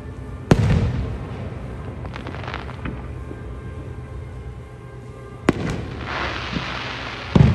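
Aerial fireworks going off: sharp bangs about half a second in, about five and a half seconds in and near the end, each followed by a low rumble. Scattered crackles come a couple of seconds in, and a dense crackling hiss follows the second bang.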